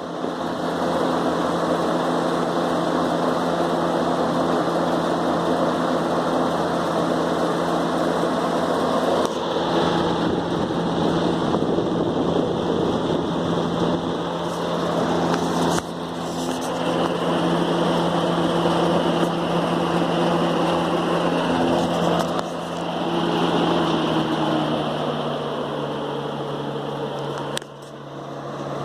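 A 1972 Galaxy 3714 two-speed box fan running, a steady motor hum under the rush of air from the blades, a little noisy and rattly.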